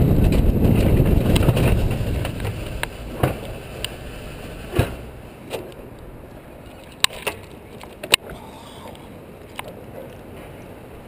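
Alpine coaster sled running on its rail with wind on the microphone: a loud rushing rumble that dies down about two seconds in as the sled slows, then several sharp clacks and knocks from the sled on the track.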